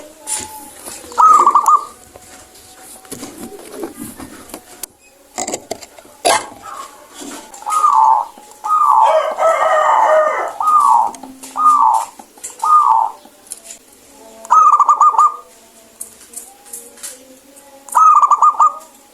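Zebra dove (perkutut) cooing: bouts of short, rapid, trilled coos with pauses between them, the longest bout running for several seconds near the middle. A few sharp clicks fall between the bouts.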